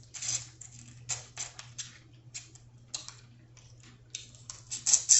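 Quick, irregular clicks and crackles of a seafood shell being cracked and picked apart by hand, several a second, sharpest near the end.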